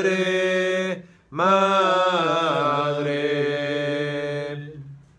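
A single voice singing the drawn-out closing notes of a hymn. One note is held, then after a short breath a final long note dips lower partway through and fades away near the end.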